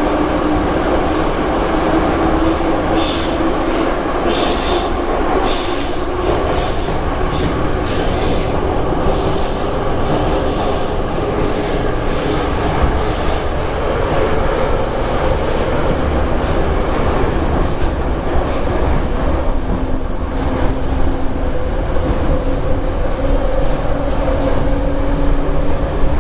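Moscow Metro train running through a tunnel, heard from inside the carriage: a steady loud rumble and wheel noise with a hum that drifts in pitch. From about three seconds in to about thirteen seconds in there is a run of short, high-pitched wheel squeals.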